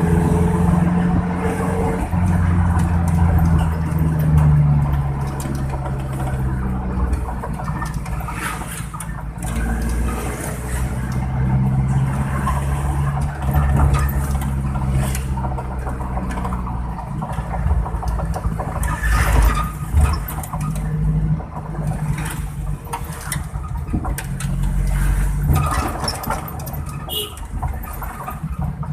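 Suzuki Carry's engine running with a deep, snoring exhaust note likened to a bus, its pitch rising and falling repeatedly with the revs, with a few short knocks over it.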